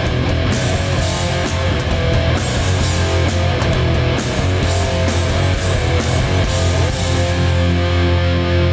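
Hardcore punk band playing live: heavy distorted electric guitars, bass and drums. About seven seconds in the cymbals drop out and held guitar chords ring on.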